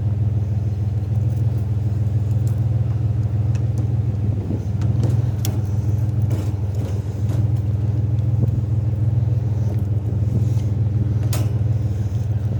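Vehicle engine idling steadily, with scattered small clicks and clinks of a strap and metal being handled.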